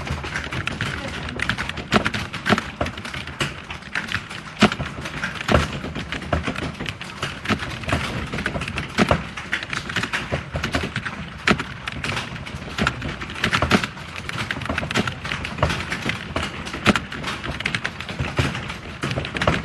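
Computer keyboard being typed on fast: a dense, uneven stream of key clicks with some louder strikes among them.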